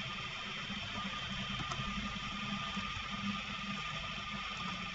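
Steady background hiss and hum with a faint steady high-pitched tone, and a single faint click about one and a half seconds in.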